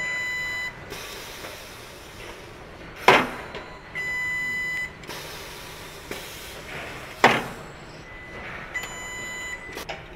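Machine-shop ambience: a long electronic beep sounds near the start, again about four seconds in and faintly near the end, and two loud sharp bangs with a short ringing tail come about three and seven seconds in, over a steady machinery background.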